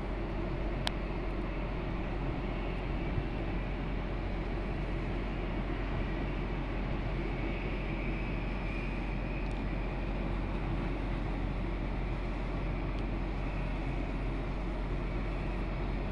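Steady outdoor rumble and hiss with no distinct event, heaviest in the low end. One faint click comes about a second in.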